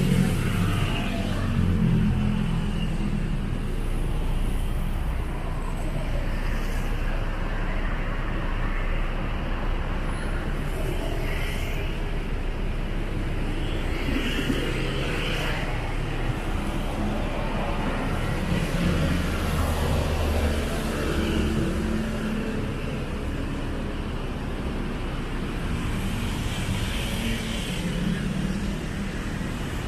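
Steady road traffic noise: cars passing one after another, their engine rumble swelling and fading several times over a constant hum of tyres and engines.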